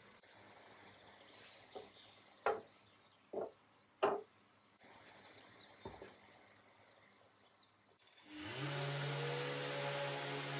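A few short wooden knocks as a door panel is handled and set on the bench. About eight seconds in, a random orbital sander and its dust extractor start up, spinning up briefly and then running steadily, sanding varnish off the veneered door.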